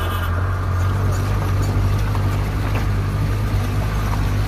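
Jeep engine running steadily with a low drone while driving over a rough gravel mountain track, heard from inside the moving jeep.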